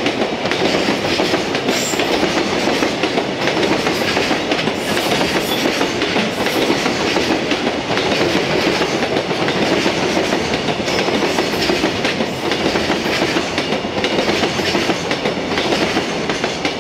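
Freight train container wagons rolling past at close range, their wheels clattering steadily over the rail joints.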